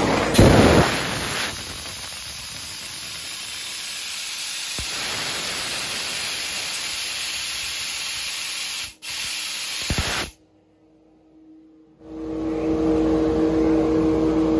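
CNC fiber laser cutting sheet steel: a loud, steady hiss of the assist-gas jet at the cutting head, louder in the first second or so, broken off for an instant about nine seconds in and stopping suddenly just past ten seconds. After a short near-silent gap, a steady hum with low steady tones takes over near the end.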